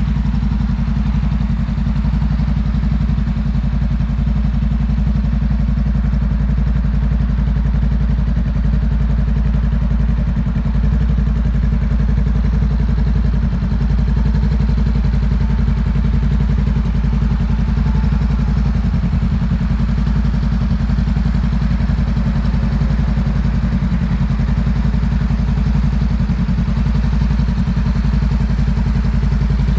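Honda CMX500 Rebel's 471 cc parallel-twin engine idling steadily.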